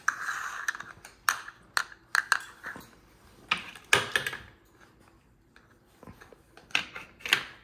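Irregular sharp clicks and clacks of Connect Four game discs being handled and set down, about a dozen in all, with two louder ones near the end.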